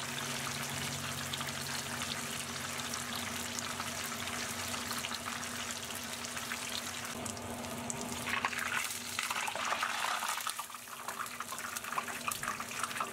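Battered shrimp deep-frying in hot oil: dense, steady sizzling and crackling, with louder sharp pops and spits in the last few seconds.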